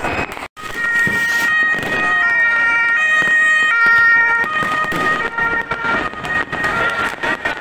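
German ambulance's two-tone siren, alternating between two pitches, loudest about halfway through as the vehicle passes close. Firework crackles and bangs come back around it near the end.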